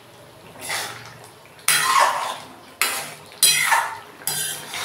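A wooden spoon stirring and mashing thick pumpkin and potato curry in a metal kadai, scraping and knocking against the pan in about five strokes. The pieces are being worked down to thicken the curry into a gravy.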